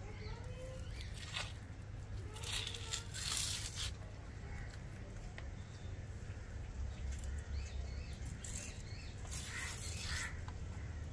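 Skin being peeled and torn off a tongue fish (sole) by hand, heard as several short wet tearing, rubbing bursts, the loudest about three seconds in. Birds chirp faintly in the background.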